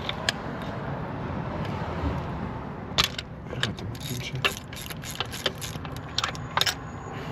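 Hand tools working on a car engine: a run of sharp metallic clicks and clinks in the second half, over a steady low background noise.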